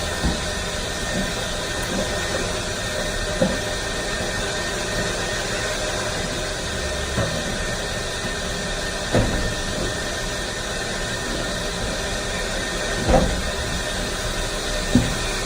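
Vacuum cleaner running steadily while cleaning hair out of the truck seats, with a few short knocks as the nozzle bumps against the interior.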